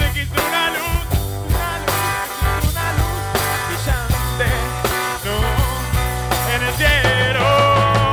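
Rock band playing: a sung lead vocal over drums, bass and electric guitars, with a long held sung note near the end.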